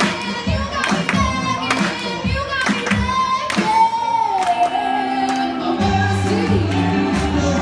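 A woman singing live into a handheld microphone over a backing track with a steady beat, amplified through the room's speakers. About halfway through she holds one long note that dips slightly in pitch.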